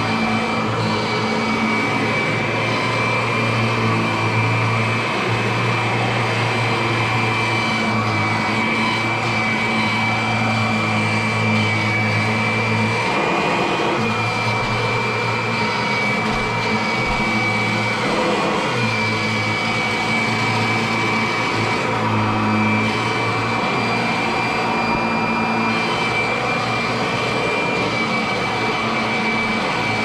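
Kirby upright vacuum cleaner running while it is pushed over carpet: a steady high motor whine over a low hum, the low hum dipping briefly twice near the middle.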